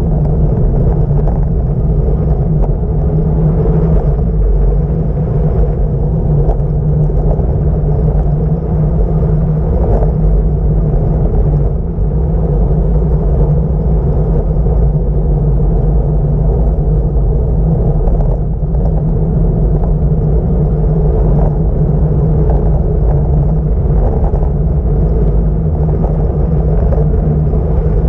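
Wind buffeting an action camera's microphone on a fast bicycle descent: a loud, steady low rumble.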